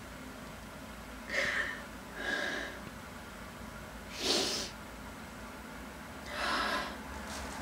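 A woman sniffling and breathing shakily as she cries quietly: four short breathy sniffs spread over a few seconds, the loudest about four seconds in.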